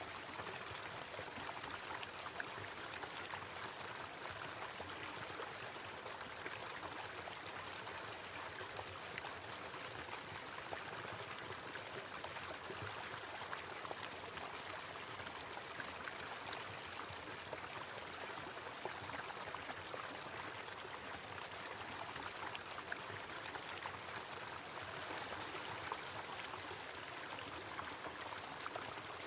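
A small waterfall, water running and splashing steadily.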